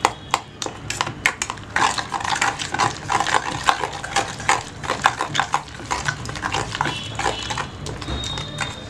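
Steel spoon scraping and clinking against a stainless-steel strainer while mashing soft boiled black grapes to press out their juice and pulp, in many quick irregular strokes.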